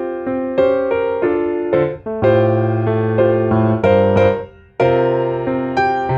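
Background music: a gentle piano tune, notes struck in a steady pattern, with a short break about four and a half seconds in.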